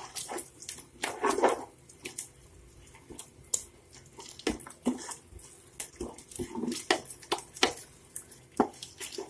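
A wooden spatula stirring thick, wet tomato-onion masala in an aluminium pot, with irregular scrapes and knocks against the pot, as spice powder is mixed in.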